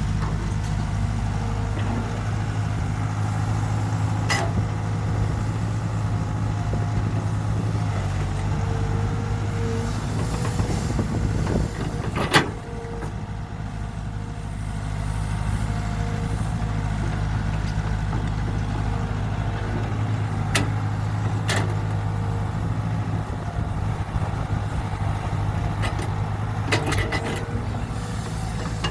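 Excavator's diesel engine running steadily under load, with a higher whine that comes and goes and several sharp knocks, the loudest about halfway through.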